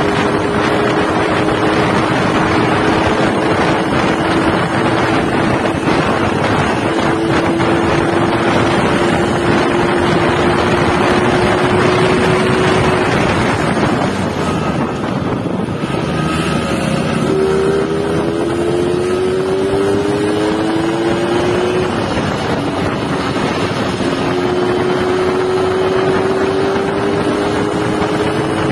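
Yamaha RX-King two-stroke single-cylinder engine with its stock catalytic-converter muffler, under way. The engine note climbs slowly, eases off about halfway through, then rises again in a few quick climbs and settles, with wind noise on the microphone.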